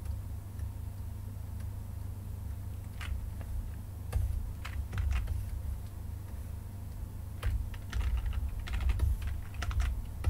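Computer keyboard keys clicking in scattered clusters, a few about four to five seconds in and a denser run in the last few seconds, over a low steady hum.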